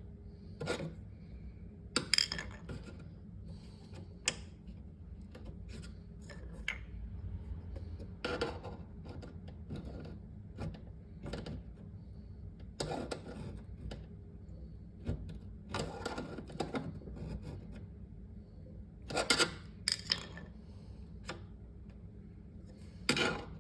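Flat-head screwdriver prying and scraping against the thin metal tabs of a refrigerator roller-wheel bracket as they are bent down, in irregular metallic clicks and scrapes.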